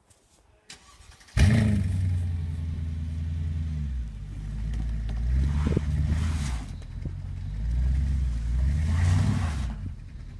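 Mercedes-Benz W211 E500's V8 starting about a second and a half in with a sudden burst, then running at a steady fast idle. It is revved twice, each time rising and falling back, and settles to a lower idle near the end.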